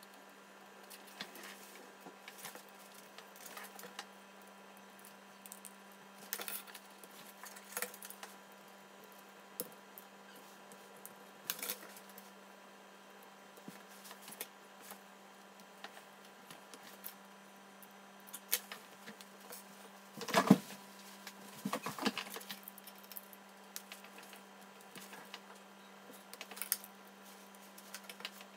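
Small parts of a 1:6 scale M82A1 model rifle clicking together and tapping on a wooden tabletop as it is assembled by hand: scattered light clicks, with a louder cluster of knocks about twenty seconds in.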